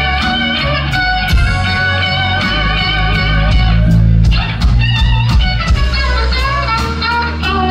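Live blues trio playing: an electric guitar lead of held, bent notes over bass guitar and a steady drum beat.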